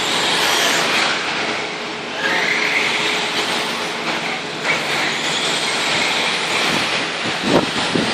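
Radio-controlled short course trucks running on an indoor dirt track: their drivetrains whine in pitches that rise as they accelerate, over a steady dense noise, with a short loud knock near the end.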